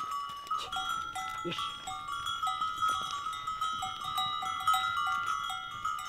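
Bells on walking cows clanking and ringing irregularly, with many short overlapping notes. A brief low call is heard about a second and a half in.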